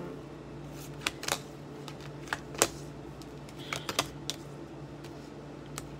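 Tarot cards being dealt one by one onto a glass tabletop: a scattering of sharp taps and clicks, about nine in all, some in quick pairs.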